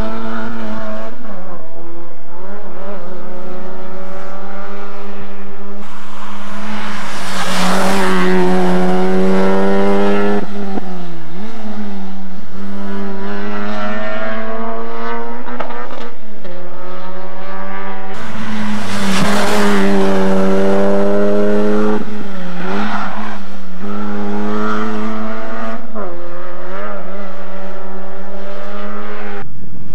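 Rally car engine at full throttle on a tarmac stage, the revs climbing and dropping sharply through gear changes. It is loudest about seven seconds in and again about nineteen seconds in, as it comes close.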